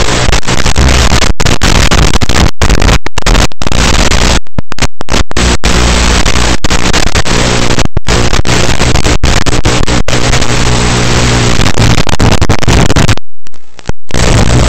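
Loud hiss and buzz of static from an analog FPV video receiver, recorded by the EV800D goggles' DVR. It cuts out to silence many times in short gaps, with a longer gap near the end.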